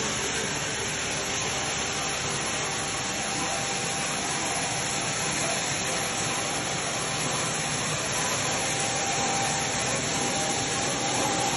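Industrial belt conveyor running: a steady whirring machine noise with a hiss, and a faint steady tone that is clearer in the second half.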